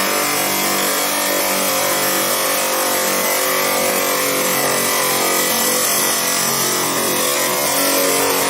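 Abrasive chop saw running steadily as it cuts through steel reinforcement bar, a dense, unbroken whine made of many steady tones.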